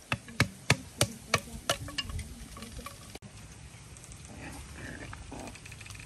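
A quick run of about seven sharp knocks, roughly three a second, over the first two seconds, then softer scattered sounds.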